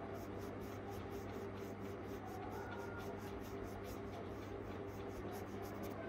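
Paintbrush stroking black acrylic paint onto cotton fabric stretched taut in an embroidery hoop, a quick even rhythm of about four to five strokes a second that stops just before the end. A steady low hum runs underneath.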